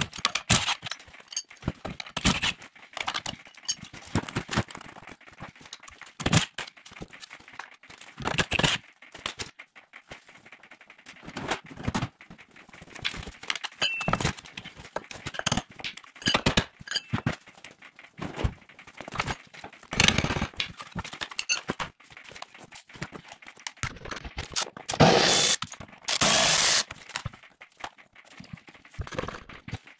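Hand tools clanking, clicking and scraping on metal while a car's front suspension is taken apart, with a louder stretch of steady noise about twenty-five seconds in.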